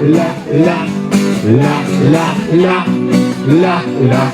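Acoustic guitar strummed in a steady rhythm, about two strums a second, accompanying a song.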